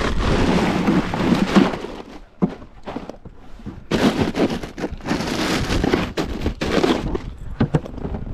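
Crinkling and crackling of a plastic ice bag inside a cooler, with knocks, as a caught striped bass is put in and the cooler is handled, in two loud spells, the second starting about four seconds in.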